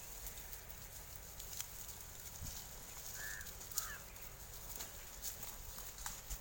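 Faint outdoor farmyard ambience with scattered light clicks and two short high chirps a little past halfway.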